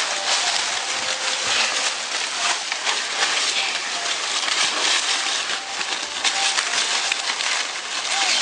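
Dry corn stalks, leaves and husks rustling and crackling as ears of corn are picked and handled by hand: a dense, irregular crackle throughout.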